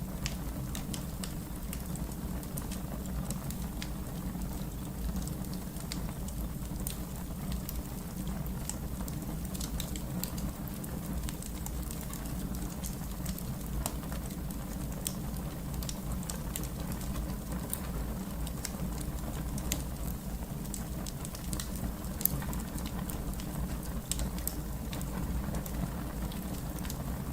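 Fire crackling: a steady low rumble of burning with frequent small, sharp snaps and pops, a couple of them louder in the second half.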